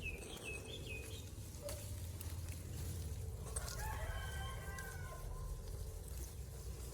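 A rooster crowing, one long call from about three and a half seconds in, over a steady low rumble, with a few short high chirps in the first second.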